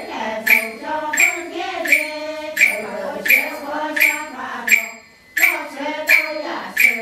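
Several voices chanting together to a steady beat of sharp, ringing strikes, about three every two seconds, with a short pause about five seconds in.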